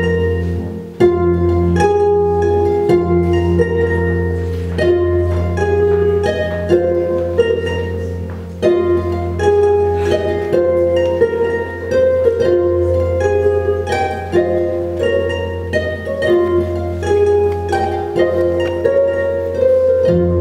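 Lyon and Healy Concert Grand pedal harp played through effects: plucked notes in a flowing pattern ring on over a steady low drone.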